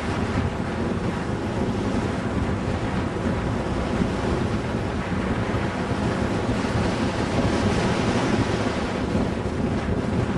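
Pontiac Fiero's engine and road noise while it is driven hard through an autocross course, mixed with wind noise on the microphone: a steady noisy drone that swells a little about two-thirds of the way in.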